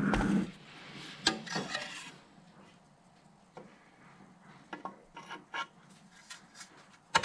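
A metal pipe shaft is slid and twisted inside a freshly bored thin-walled brass bush held in a lathe chuck, making metal-on-metal rubbing and scraping with light clicks and a sharper click near the end. This is a trial fit of the shaft in the bore, and it turns out a good fit.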